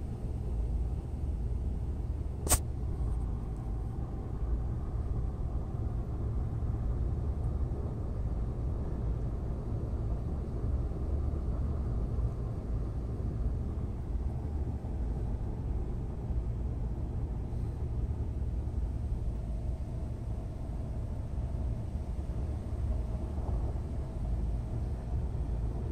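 A steady low rumble with no words over it, and one sharp click about two and a half seconds in.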